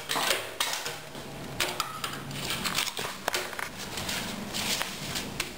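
Scattered clicks, light knocks and rustling as a plastic template jig and a sewn fabric piece are handled on the table of a computer-controlled pattern sewing machine.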